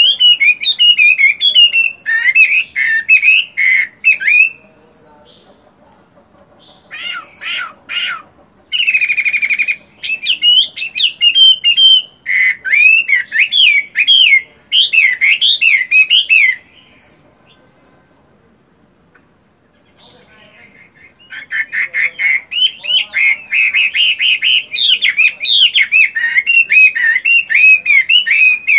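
Caged Chinese hwamei (melodious laughingthrush) singing loud, rapid, varied whistled phrases, mixed with a few harsher notes. It falls silent for a few seconds past the middle, then sings a long unbroken run near the end.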